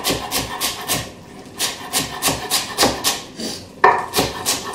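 Chef's knife chopping fresh coriander on a wooden cutting board: quick knife strikes on the wood, about six a second, in runs broken by two short pauses, with a sharper knock near the end.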